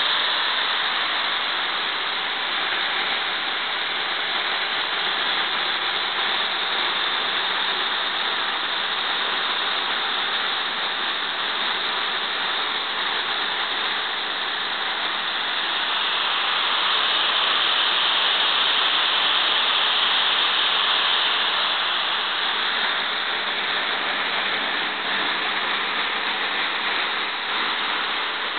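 Overhauled Lycoming T53-L-13B turboshaft engine running steadily after its first start following overhaul: an even, loud rushing hiss with a bright top. It grows a little louder and brighter past the middle, then settles back.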